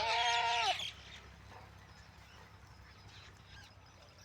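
A goat bleating, one long call that ends under a second in, followed by a faint steady low hum.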